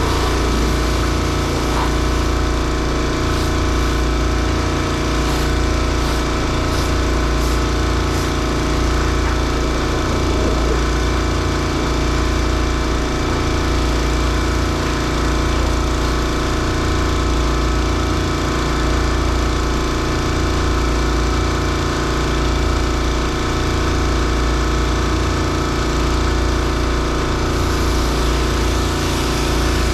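An engine running steadily at constant speed, with a low throb that swells and dips about once a second.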